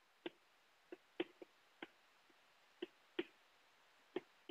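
Chalk tapping on a blackboard as words are written by hand: about eight faint, irregular clicks.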